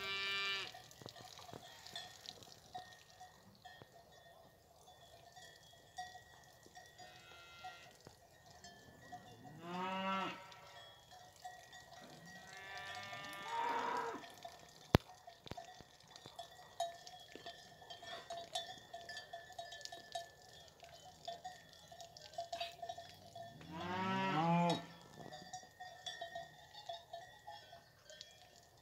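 A herd of fighting-breed (toro bravo) cows and calves lowing. Four drawn-out moos come near the start, about ten seconds in, around fourteen seconds and about twenty-five seconds in. Cowbells clank faintly and steadily throughout, with one sharp click about fifteen seconds in.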